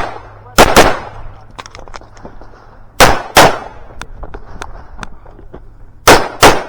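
Pistol gunfire from a shooter running an IDPA stage. There is a quick pair of shots about half a second in, another pair about three seconds in, and three rapid shots near the end, with small metallic ticks in between.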